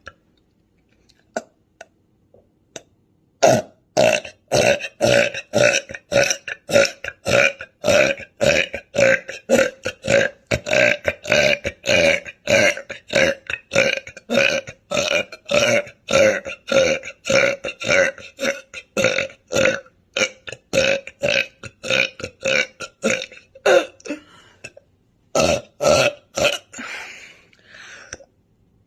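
A woman burping over and over in short, quick burps, about three a second, starting a few seconds in, with a short break near the end before they resume.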